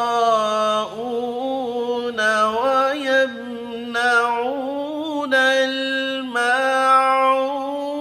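Man's voice reciting the Quran in the melodic tajweed style, holding long, ornamented notes that step up and down between pitches.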